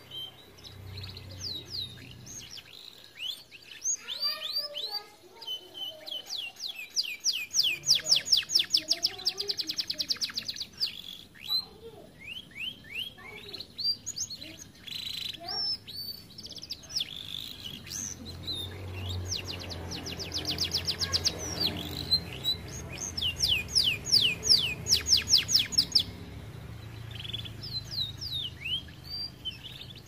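Domestic canary singing: chirps and short phrases broken by three loud, fast trills of repeated downward-sweeping notes, about ten notes a second.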